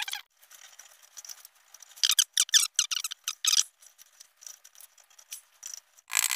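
Thin sheet-steel blank pressed by hand around a steel bar in a vise: short squeaking, scraping strokes of metal on metal, about two seconds in. Near the end, a quick run of sharp hammer taps on the metal.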